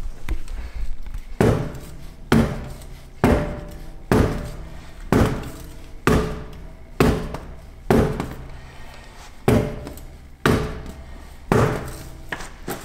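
BMW alloy wheel struck again and again, about a dozen sharp blows a little under a second apart, each leaving a short ring, to break it loose from a rusted, corroded hub.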